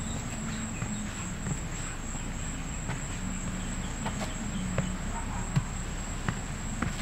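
Evening insects trilling steadily on one unbroken high note, with scattered footsteps.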